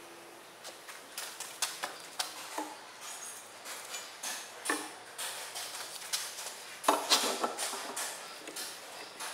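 Steel C-channel knocking and clinking against a homemade steel bench vise as it is set into the jaws: a series of short metal knocks, some ringing briefly, loudest about seven seconds in.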